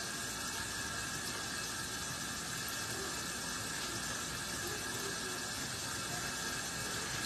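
Kitchen faucet running steadily, its stream splashing into a stainless steel sink with an even hiss.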